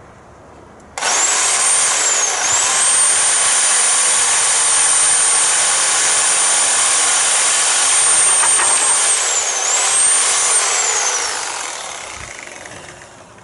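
Corded electric power tool cutting a timber batten: its motor starts abruptly with a high whine, dips in pitch briefly twice as it takes load, then winds down with a falling whine near the end.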